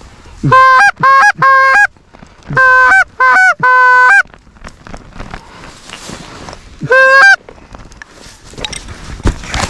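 Loud Canada goose honks, each breaking upward in pitch at its end. They come in two quick runs of four, then a single honk about seven seconds in.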